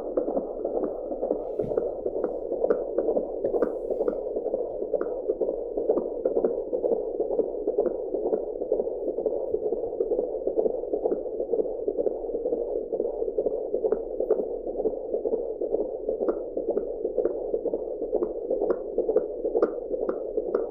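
Fetal heartbeat picked up by an AngelSounds handheld Doppler: a fast, even, pulsing beat, about two to three beats a second, over a steady whooshing hiss.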